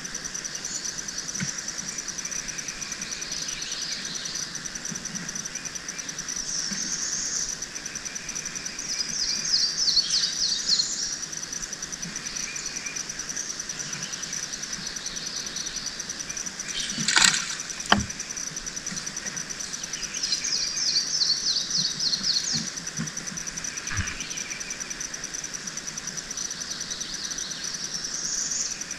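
Swamp ambience: a steady, fast-pulsing insect chorus with a bird calling in rapid runs of notes twice, once about ten seconds in and again after twenty. Two sharp knocks close together, about seventeen seconds in, are the loudest sounds, with a softer knock near the end.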